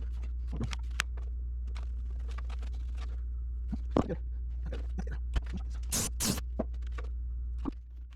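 Scattered light scrapes and clicks of a hand scraper and tools on a metal exhaust header, cleaning off old gasket material, with two brief louder scrapes about six seconds in, over a steady low hum.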